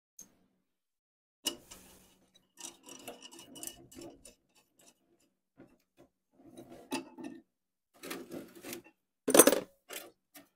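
Intermittent scraping and rubbing with light clicks, in short clusters, and one louder knock about nine seconds in.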